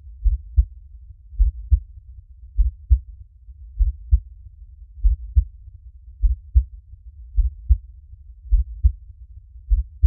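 Slow, steady heartbeat: low double thumps (lub-dub) repeating evenly a little more than once a second, about nine beats in all.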